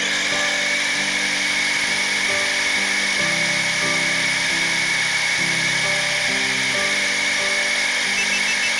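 Electric drive motor and gearbox of an FTX Kanyon RC crawler whining steadily as it drives along tarmac, heard over background music.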